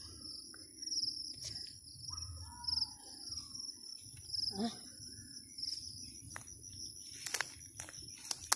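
Crickets trilling steadily in a high, pulsing chorus over a faint steady hum of insects. Near the end, a quick run of sharp crackles and rustles from walking through grass.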